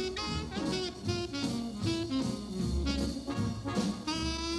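Jazz music: a saxophone-led horn line over a drum kit, with a long held note near the end.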